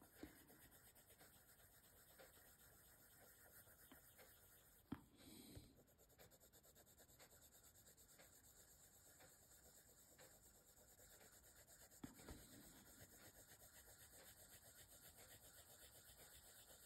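Faint scratching of a soft wax-based Prismacolor colored pencil shading paper in quick repeated strokes, with a light knock about five seconds in and another about twelve seconds in.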